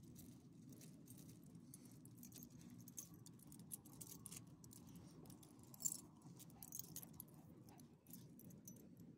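Faint irregular jingling of a dog's metal collar tags and leash clip as the dog moves, with one sharper clink about six seconds in, over a low steady hum.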